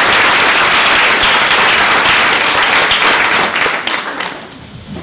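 Audience applause, many people clapping, dying away near the end.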